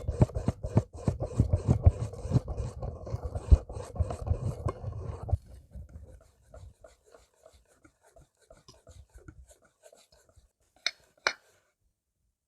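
A utensil rapidly stirring and scraping a mixture in a bowl, with dense quick strokes that stop abruptly about five seconds in. Light scattered taps follow, then two sharp clicks near the end.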